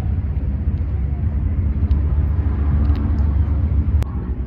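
Road traffic: a steady low engine rumble of vehicles running close by.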